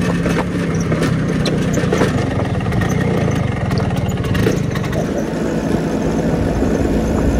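Vespa scooter engine running steadily while riding, a constant low drone with road and wind noise, changing in character about five seconds in.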